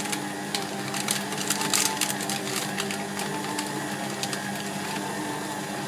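Electric stand mixer running steadily on its lowest speed, beating a stiff flour dough, with a motor hum and scattered light clicks.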